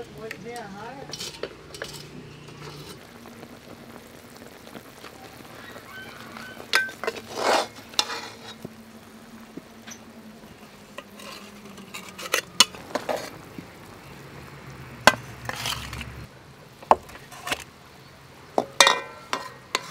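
Metal tongs and a ladle clinking and scraping against a metal stew pot as whole braised ducks are lifted out of the steaming liquid. Irregular sharp clinks and short scrapes, more of them in the second half, over a low steady background.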